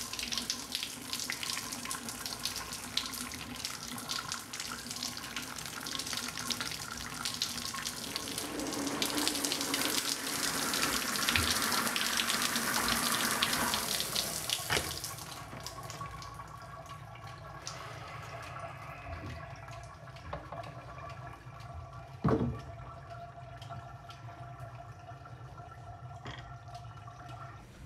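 Shower running, water spraying from an overhead showerhead and splashing, until it is turned off about halfway through. After that only a faint steady hum remains, with one sharp thump a few seconds later.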